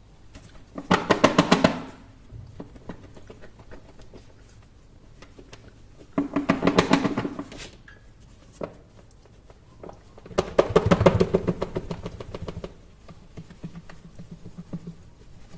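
Wrapped chocolates and a smartphone rattling inside a lidded container shaken by hand, in three bursts of rapid knocks lasting one to two seconds each, with a few loose knocks between them.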